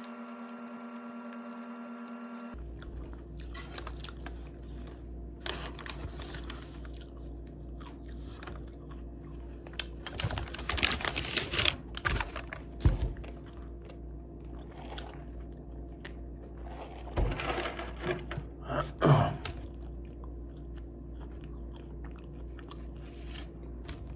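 A person biting and chewing a hamburger close to the microphone, in irregular crunchy bursts, loudest about ten to thirteen seconds in and again around seventeen to nineteen seconds, over a steady low hum. A brief steady held tone plays at the very start.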